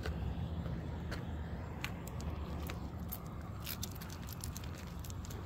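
Leashed dog walk on pavement: a steady low rumble on the microphone, with scattered light clicks and jingles of the collar and leash.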